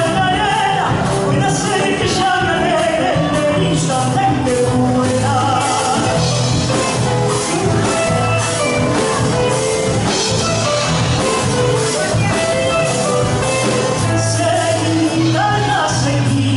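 Latin American folk music with singing: a vocal melody over steady bass and a regular percussion beat.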